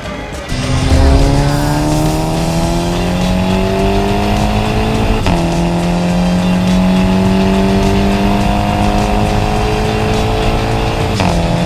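Car engine with a loud aftermarket exhaust accelerating hard: the pitch climbs for about five seconds, drops sharply at an upshift, then climbs again through the next gear for about six seconds.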